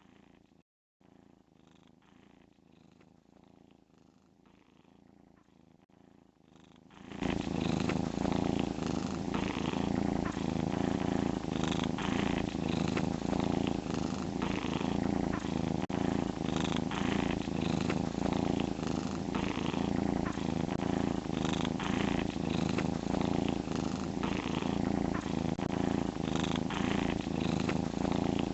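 Domestic cat snoring in its sleep, a steady rhythmic breathing rasp. It is faint at first and much louder from about seven seconds in.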